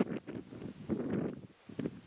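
Wind buffeting the microphone in uneven gusts, a low rumbling rush that eases off near the end.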